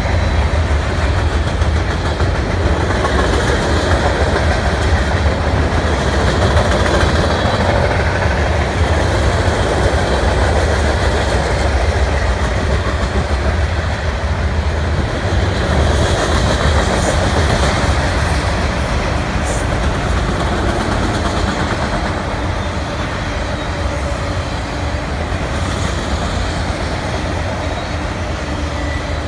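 Cars of a CN mixed freight train (hoppers, gondolas and autoracks) rolling past: a loud, steady rumble of steel wheels on the rails that eases slightly toward the end.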